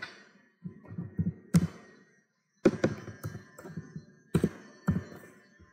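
Computer keyboard being typed on: irregular keystrokes in small clusters, with a few single sharper taps in between.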